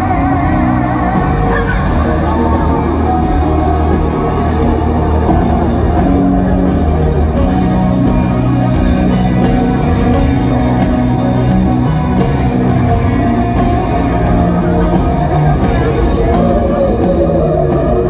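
Live country-rock band playing loudly in a large arena, electric guitar to the fore, with a woman singing lead over it.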